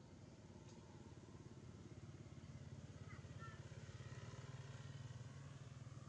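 Faint low rumble of a motor vehicle engine, swelling towards the middle and easing off near the end, with a few faint high chirps about halfway through.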